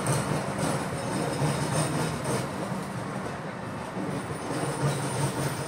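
Passenger train running along the track: a steady noise with a strong low hum.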